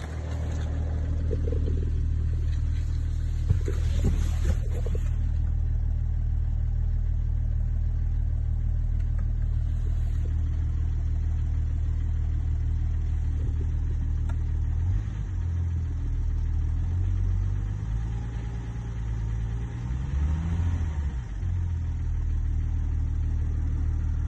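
BMW M550d's three-litre straight-six diesel idling steadily, with a short rev that rises and falls about twenty seconds in. The owner suspects a turbo failure or an engine failure.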